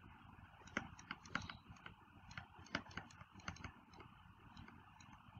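Faint, irregular clicks and taps of a stylus on a pen tablet during handwriting, about a dozen small ticks.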